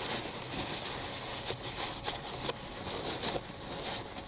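Hands cleaning the motorcycle brake lever's pivot bolt: a steady rubbing with a few light clicks.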